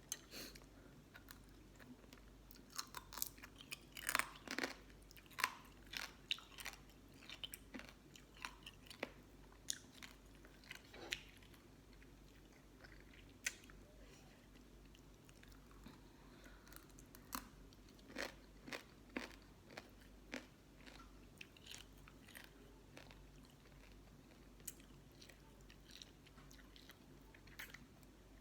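A person chewing and crunching a mouthful of spicy green mango salad with pickled sea crab: many short, sharp crunches, coming thickest in the first half and thinning out towards the end.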